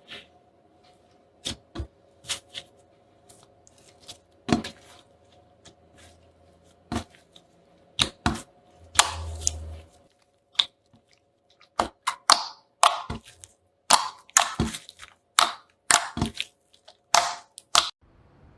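Slime being pressed and squeezed by hand, giving a string of sharp, irregular clicking pops from air pockets bursting, coming thicker and louder in the second half.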